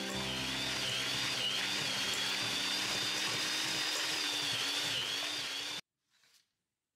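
Electric hand mixer running as it beats softened butter in a stainless steel bowl, a steady motor whine that wavers slightly in pitch. It cuts off suddenly near the end.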